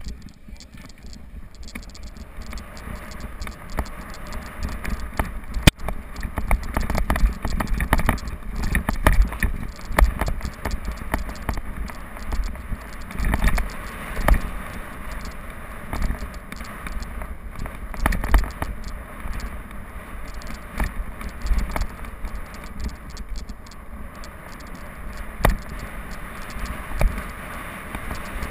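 Mountain bike riding fast down a dirt-and-stone trail, heard through a camera mounted on the bike: a steady low rumble from tyres on dirt, with constant small clicks and rattles from the bike over rough ground. The rumble builds over the first few seconds as the bike picks up speed, and there is a sharp knock about six seconds in.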